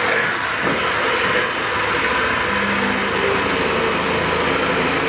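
Electric hand mixer running steadily at speed, its twin beaters whisking egg whites and sugar in a glass bowl.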